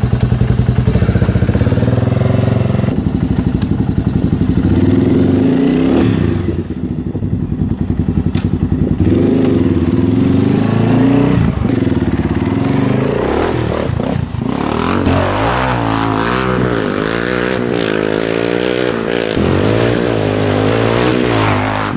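Yamaha Raptor 350 quad's single-cylinder four-stroke engine, first running at idle with a fast even pulse, then revving as it is ridden, the pitch rising and falling over and over in the second half.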